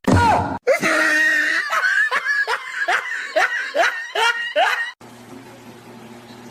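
Laughter: a loud cry with a falling pitch, then a run of short, rhythmic laughing bursts at about two to three a second, stopping about five seconds in. A low steady hum stays underneath after it stops.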